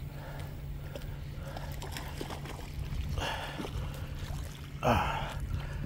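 Hooked catfish splashing at the water's surface close to the bank as it is reeled in, with the sharpest splash about five seconds in.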